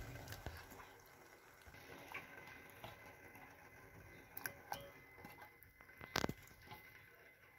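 Quiet, faint splashes and clicks as raw fish pieces go into a steel pot of hot water. The loudest is a sharp double click about six seconds in.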